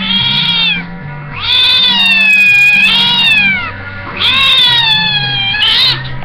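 Kitten meowing loudly: three long, drawn-out meows that rise and fall in pitch, the middle one the longest, over background music with a steady bass line.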